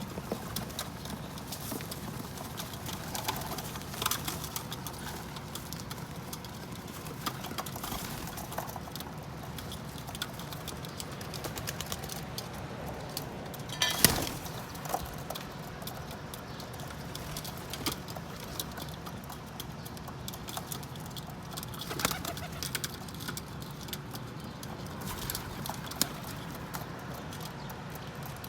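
Pigeons feeding on sunflower seeds: scattered sharp pecking taps, the loudest about halfway through, with soft cooing.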